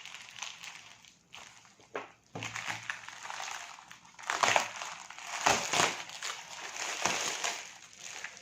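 Amazon shipping packaging being cut and torn open by hand: irregular rustling in several bursts, with brief pauses between them.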